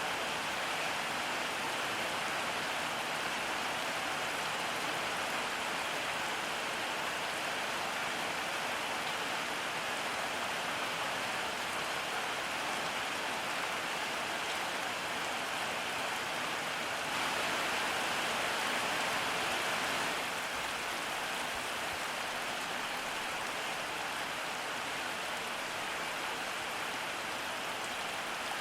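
Steady rain falling, an even patter that briefly grows a little heavier about two-thirds of the way through.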